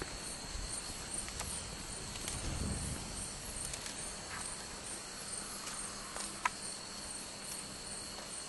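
Night insect chorus: a steady high trill with a higher pulsing call repeating a few times a second. Over it are low rustling of footsteps through vegetation and a single sharp click about six and a half seconds in.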